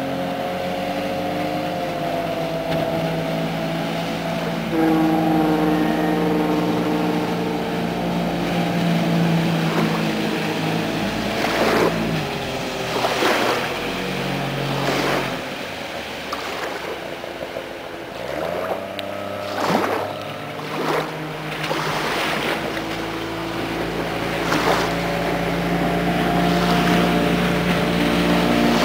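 Motorboat engines running at speed as boats pass close by, the engine note shifting in pitch as they go by, with short bursts of rushing water or wind noise through the middle.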